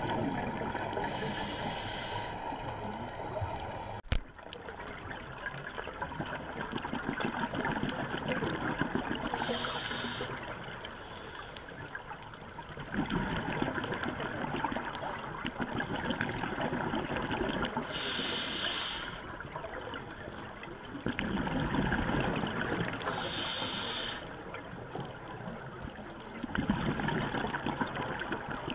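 Scuba diver's regulator breathing, heard through an underwater camera housing: a short hissing inhale every several seconds, each followed by a longer burst of exhaled bubbles. A single sharp click about four seconds in.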